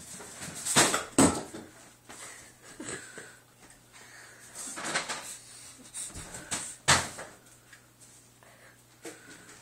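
Indoor thumps, knocks and scuffs of a dog scrambling after a laser pointer dot, with its paws and claws hitting and skidding on the floor. The sharpest knocks come about a second in, again near the middle and once more near seven seconds.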